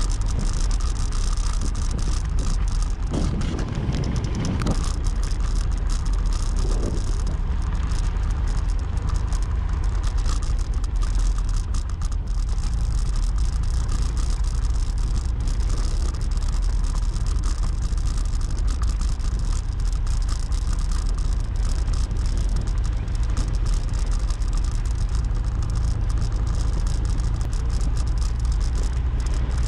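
Vehicle ride noise picked up by a GoPro Hero 7 mounted on the vehicle: steady low road, engine and wind rumble throughout, with repeated small clicks, 'tạch tạch tạch', coming from the camera body itself rather than from its mount.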